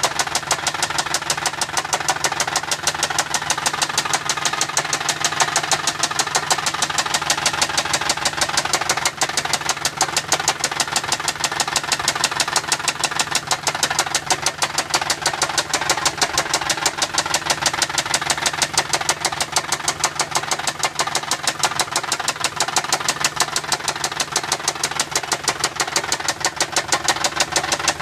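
Saab 9-5 3.0-litre V6 engine running at a steady speed with a loud, rapid, even ticking from the valvetrain, which the owner takes for lifter noise.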